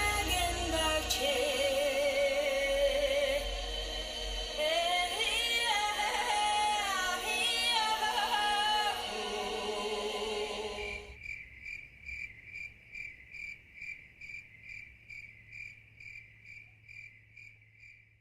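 Choral singing with music, voices holding wavering notes, which cuts off suddenly about two-thirds of the way in. A cricket then chirps in a steady high pulse about twice a second, fading out at the end.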